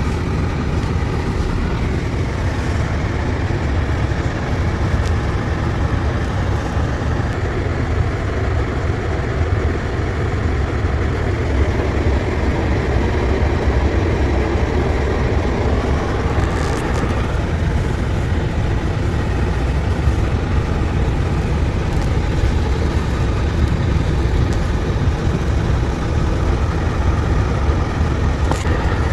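Steady low rumble of a car driving on a snowy road, engine and tyre noise heard from inside the vehicle, with two brief clicks late on.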